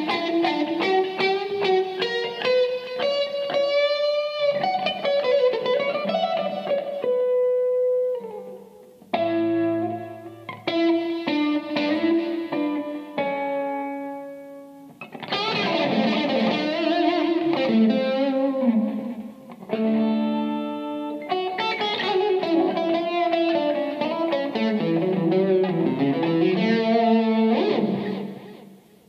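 Electric guitar playing an unaccompanied solo cadenza: phrases of quick runs and held notes with short breaks between them, fading out near the end.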